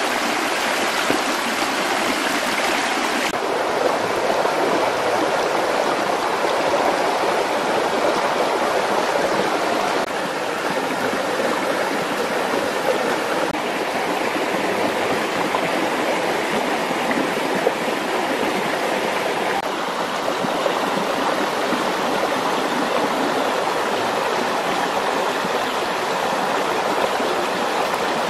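A stream running over rocks: a steady, continuous rush of water whose tone shifts slightly a few times.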